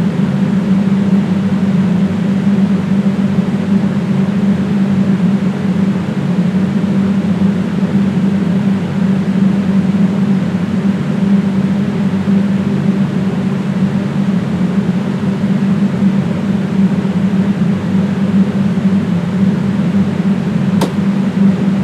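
A loud, steady mechanical hum with a strong low drone and an even hiss over it, unchanging throughout; one sharp click near the end.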